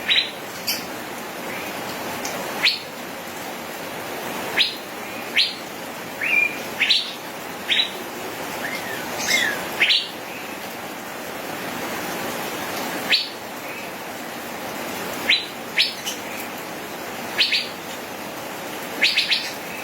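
Male Asian fairy-bluebird calling: short, sharp chirps, singly or in quick runs of two or three, every second or two over a steady hiss.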